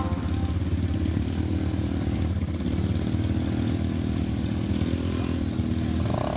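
ATV engine running steadily under way, with a brief dip in its note about two seconds in.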